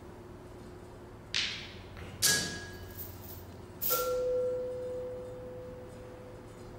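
Sparse percussion-ensemble playing: a short scraping or shaken swish, then two separate metallic strikes. The second strike rings on at one steady pitch, fading over about two seconds.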